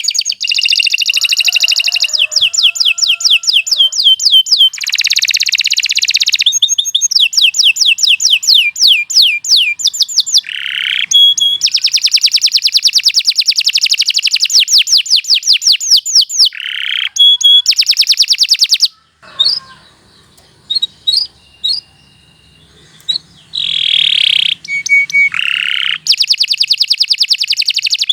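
Domestic canary singing a long song of fast, sharp trills and rolls, one repeated note series after another. The song breaks off for a few seconds about two-thirds through, with only a few scattered chirps, then starts again.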